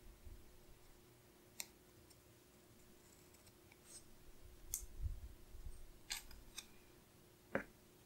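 Scissors snipping a strip of white matte sticker paper: a few faint, sharp snips spread out, the loudest near the end, with soft paper-handling noise about five seconds in.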